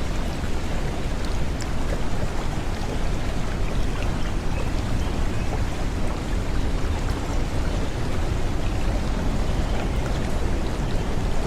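Steady rushing water with a constant, even noise and a few faint drips or ticks.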